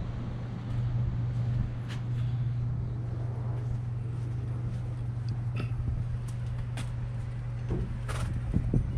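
A steady low mechanical hum, like a running engine or motor, with a few faint short clicks over it.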